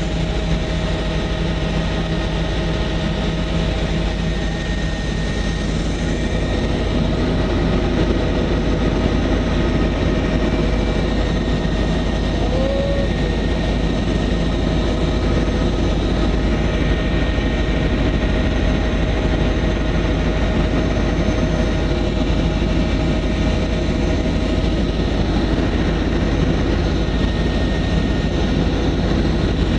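Tour helicopter's engine and rotor running steadily, heard from inside the passenger cabin: a loud, even noise with a low rumble and a few constant tones in it.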